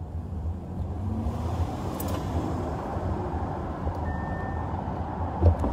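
Steady road and engine rumble inside a moving car's cabin. A short high beep sounds about four seconds in.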